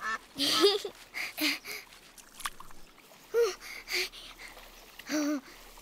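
Ducks giving about five short, soft quacks spaced out over a few seconds, with a faint trickle of pond water behind them.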